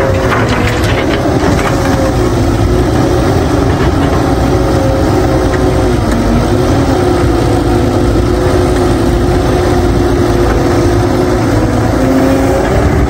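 Caterpillar 312B excavator's diesel engine running under hydraulic load while it swings, digs and lifts a bucket of soil, the engine note rising and falling with the work. About the first second holds the rattle of soil and rock dropping into a steel dump truck bed.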